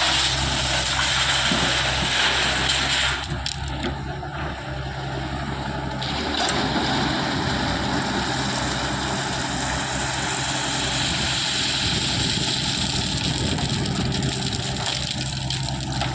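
Heavy diesel engine of a construction machine running steadily, with a dense grinding, rumbling noise over it. The noise thins about three seconds in and builds back up a few seconds later.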